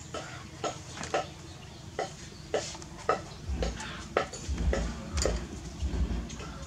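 Light, irregular clicking and clattering, several knocks a second, as a baby monkey climbs over a bicycle's plastic basket and metal frame. A low rumble comes in about halfway.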